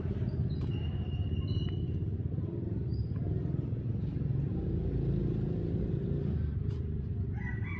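Steady low outdoor rumble with a few short high chirps. Near the end a longer, slightly falling call sets in, like a rooster beginning to crow.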